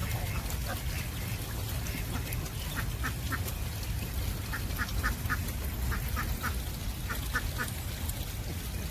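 Ducklings peeping in quick runs of three to five short high calls, over a steady low rumble.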